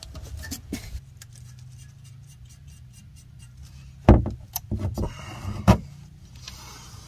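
Cordless ratchet tightening the band clamp on a diesel engine's exhaust brake: a low motor hum with metal clicks and clanks of the socket on the clamp, the loudest clanks about four and nearly six seconds in.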